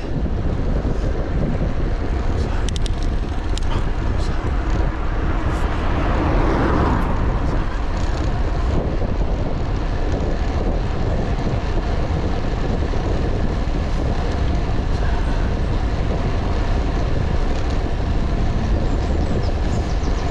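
Wind rushing over the microphone of a camera riding on a road bike, with tyre noise on tarmac. About six seconds in, a vehicle going by swells up and fades away.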